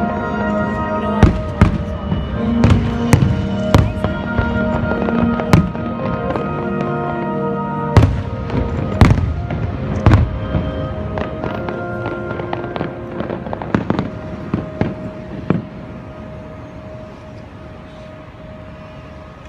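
Fireworks shells bursting in quick succession, sharp bangs over orchestral show music from loudspeakers. The bangs thin out and stop near the end, leaving the music playing more quietly.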